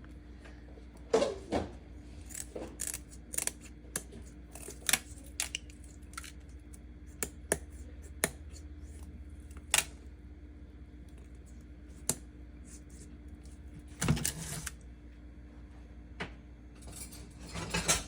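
Irregular sharp clicks and clinks of small hard objects being handled, with a steady faint hum beneath.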